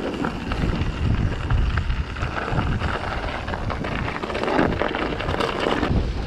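Wind buffeting the microphone of a handlebar-mounted camera over the rumble of mountain-bike tyres on a snow-dusted, frozen dirt track, with frequent small rattles and knocks from the bike over bumps.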